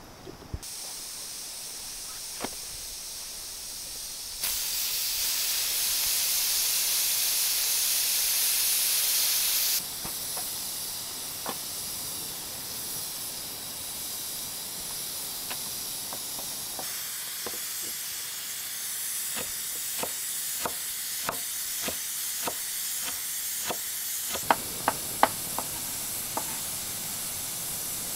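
Afghan kazan pressure cooker venting steam with a steady, high-pitched hiss, loudest for about five seconds in the first third: pressure being released from the pot. In the second half a run of sharp clicks and knocks sounds over the hiss.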